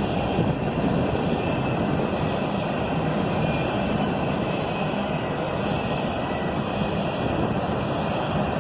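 Empty continuous-welded-rail train, modified flat cars with rail shelves, rolling past on a freight train: a steady rumble and rush of steel wheels on the track.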